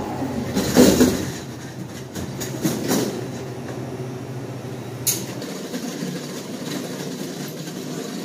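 A metal hotel luggage cart being pushed on its wheels: a steady rolling rumble and rattle, with a few sharp clunks from the frame.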